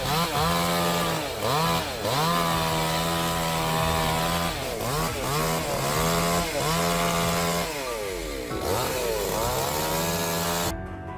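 Stihl chainsaw cutting through a large oak log. The engine's pitch dips under load and climbs back again and again. The saw cuts off abruptly near the end, leaving quieter background music.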